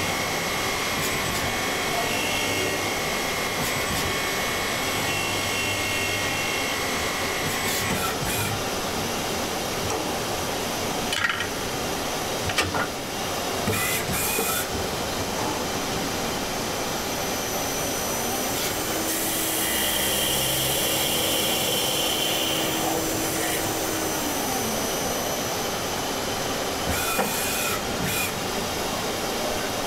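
Miyano BNA-42SY CNC turning centre machining a part: a steady hiss of coolant spray and cutting noise with a thin whine over it. A few sharp clicks come around the middle, and later a steady tone rises in pitch, holds for several seconds and drops away again.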